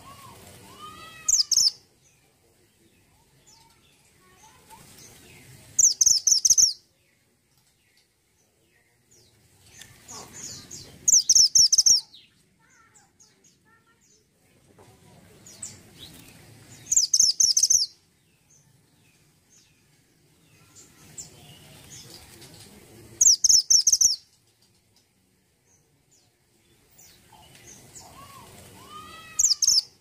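Caged male minivet (mantenan gunung) repeating a loud, short burst of rapid high-pitched chirps about every six seconds. Softer rustling of its wings and perch builds up between the bursts.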